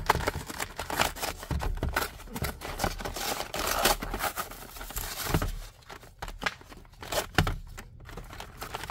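Paper packaging being torn open and crumpled by hand: an irregular run of rips and crinkles, busiest about four seconds in, thinning to scattered crackles after about six seconds.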